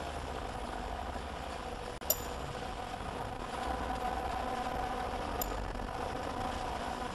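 Ultrasonic non-woven pillow making machine running with a steady mechanical hum, with one sharp click about two seconds in.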